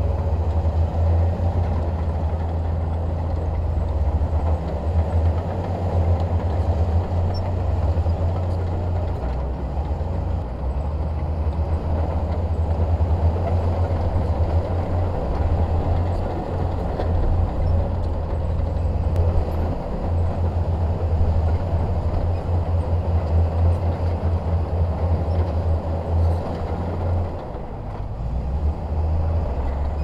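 Heavy diesel earthmoving machinery running steadily under work, its engine giving a deep low rumble that eases briefly near the end.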